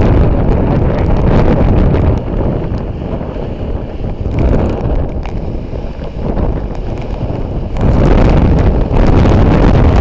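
Storm-force wind gusts buffeting the microphone: a loud, low rushing roar that eases a couple of seconds in, fluctuates, and surges back about two seconds before the end.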